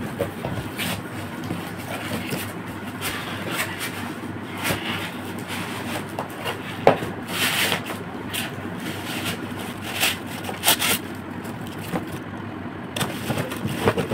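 A cardboard box and its inner cardboard packing being handled and pulled apart by hand: the flaps rustle and scrape, with irregular scratchy scrapes and soft knocks.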